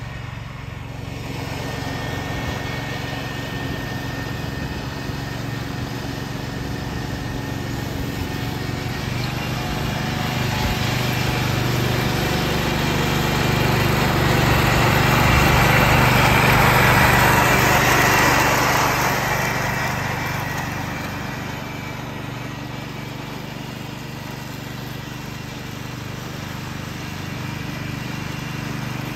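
1969 Ford 140 garden tractor's engine running steadily under load, its mower deck mulching leaves. It grows louder as the tractor passes close about halfway through, then eases off as it drives away.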